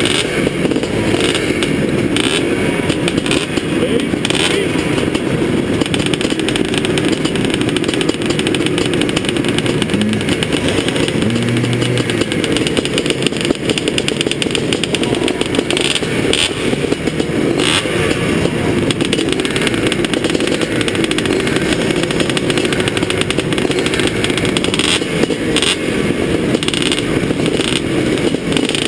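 Vintage two-stroke motocross motorcycles idling together on the starting line, the nearest being a 1981 Husqvarna 430 single; a steady engine din with a few short clicks.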